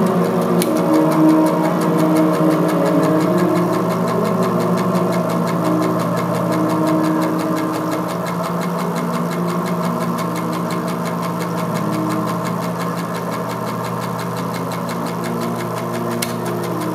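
Droning experimental film soundtrack: a steady low hum with sustained tones that come and go, over a fast, even ticking.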